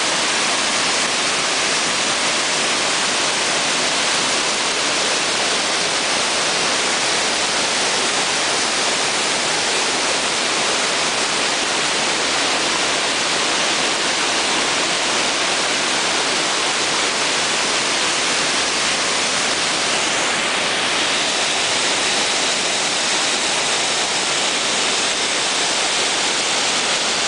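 Waterfalls pouring down a rock face and over a stone ledge: a loud, steady rush of falling water.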